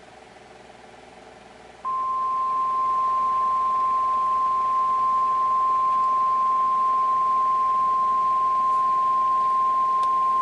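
Emergency alert attention tone: a single steady beep just above 1 kHz, starting about two seconds in and held unbroken, over faint background noise.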